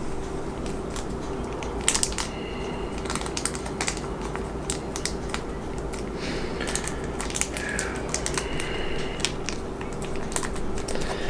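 Small plastic and metal model-kit parts and tiny screws clicking and tapping as they are handled, with irregular light clicks over a steady low hum.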